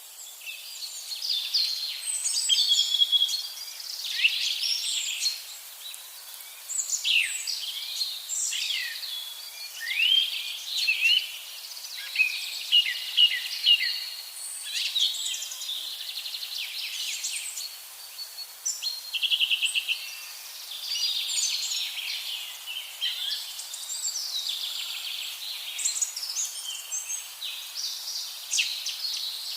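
Several songbirds singing at once: a dense, overlapping chorus of high chirps, gliding whistles and trills, with a fast rattling trill about two-thirds of the way through.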